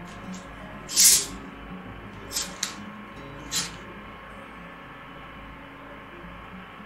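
Cap twisted open on a plastic bottle of Coke: a sharp hiss of escaping carbonation about a second in, then three shorter hisses between about two and a half and three and a half seconds in as more gas escapes and the cola foams up.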